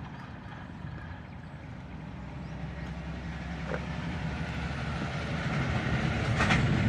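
Low rumble of a heavy vehicle approaching, growing steadily louder, with a couple of sharp knocks or clanks near the end.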